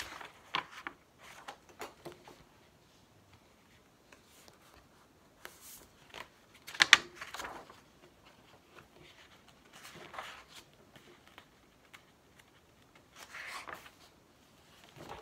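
Pages of a paperback book being leafed through and handled: scattered paper rustles and light taps, the sharpest about seven seconds in.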